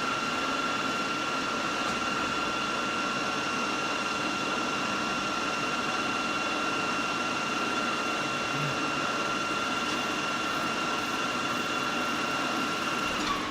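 NOVAR KBF 2500 milling machine running, a steady mechanical hum with a constant high-pitched whine over it; the whine stops near the end.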